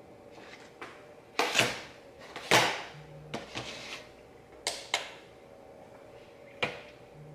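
Black plastic meal-prep containers and kitchen tongs clattering on a stone countertop as food is dished out: a string of sharp knocks and clicks, the two loudest about a second and a half and two and a half seconds in.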